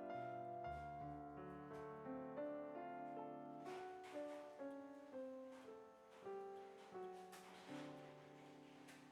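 Soft background piano music playing a slow melody of single notes and chords.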